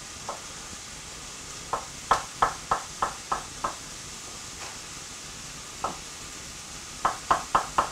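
Kitchen knife slicing mushrooms on a wooden chopping board: short sharp knocks of the blade striking the board. One comes just after the start, a run of about seven about two seconds in, a lone one near six seconds, then a quicker run near the end.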